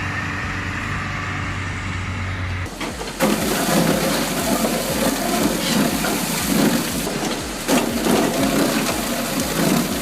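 A heavy vehicle engine running steadily. About three seconds in, it gives way to the louder, rough, irregular noise of a Cambio 45 log debarker's spiked rollers working logs.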